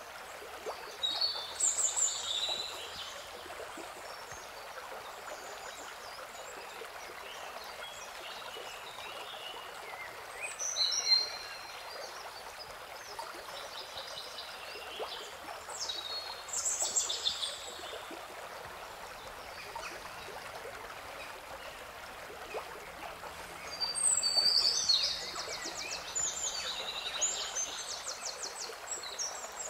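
Birds chirping over the steady hiss of running water: four short bursts of high chirps, the last a longer rapid trill near the end.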